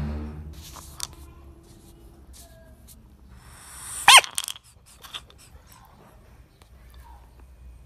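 Frog calls: a short low croak right at the start, then about four seconds in a brief, loud, high-pitched squeal that wavers in pitch. Soft clicks and rustles sound in between.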